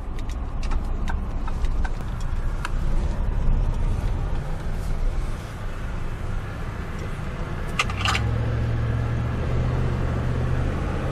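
Vehicle driving down the road with an open window: steady road and wind noise over a low engine hum. There are a few light clicks in the first seconds and a short double click about eight seconds in, after which the low drone grows steadier and stronger.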